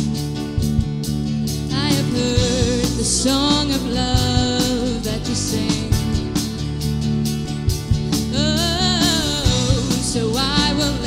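A live worship band playing a song: women's voices singing, with vibrato on held notes, over drums, guitars, bass and keyboard. The singing comes in strongly about two seconds in.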